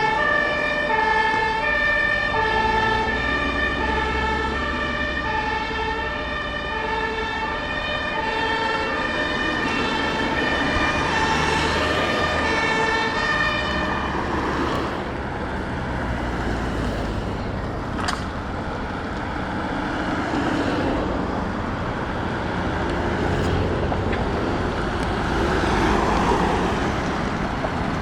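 German two-tone emergency vehicle horn (Martinshorn) switching back and forth between a low and a high pitch, stopping about halfway through. Vehicle engine and road noise follow, with one sharp click about two-thirds in.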